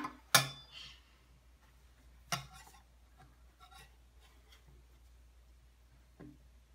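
A few scattered knocks and clinks of a metal cookie cutter and spatula against a wooden table as dough shapes are cut and lifted. The loudest clink comes just after the start and a sharp knock about two seconds in, with faint scraping between.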